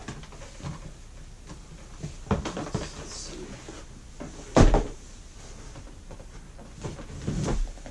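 Handling noise from sneakers and their cardboard box: scattered knocks, with one loud thump about halfway through as a shoe is set down.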